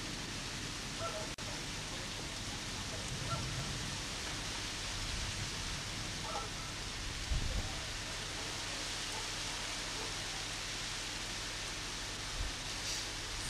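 Steady hiss of heavy rain falling in a thunderstorm, with a brief low thump about halfway through.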